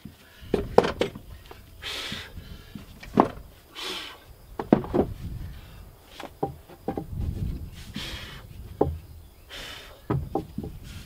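Pressure-treated lumber stair boards knocking and clattering as they are handled and shifted into place, about a dozen sharp, irregular knocks, with a few short breathy noises between them.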